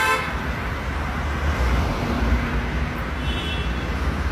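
City street traffic with a steady low rumble. A car horn honks briefly right at the start, and a short high-pitched beep sounds about three seconds in.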